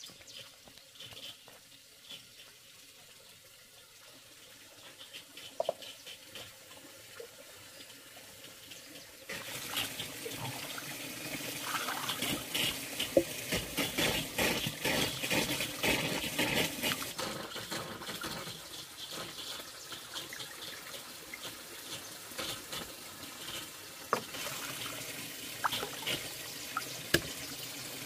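Water running and splashing, starting suddenly about nine seconds in, with many small knocks and splashes through it.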